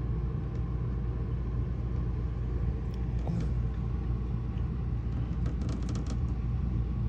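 Steady low mechanical hum and rumble, like a motor running without change, with a few faint light ticks near the end.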